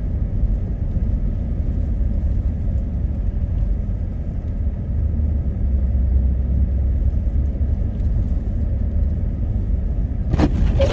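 Steady low road-and-engine rumble heard inside a car driving on a snowy road. Near the end a sudden burst of loud knocks breaks in.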